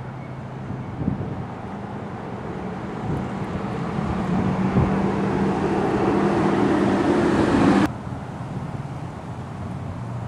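A motor vehicle's engine hum growing louder over several seconds, then cut off suddenly about eight seconds in, leaving quieter traffic noise.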